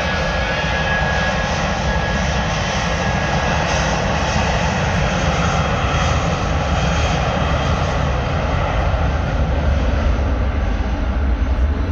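Airbus A321 airliner's jet engines at takeoff power, a loud, steady rush that grows slightly louder toward the end. A thin high whine fades out after about three seconds.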